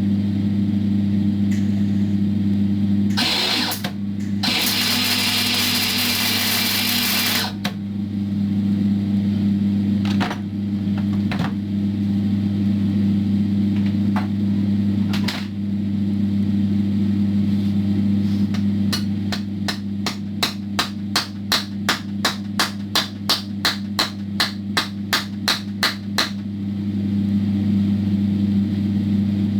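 Steady electrical hum of a small welder, with a short crackle of the welding arc about three seconds in and a longer one from about four to seven seconds. Later comes a long run of sharp, even clicks, about three or four a second.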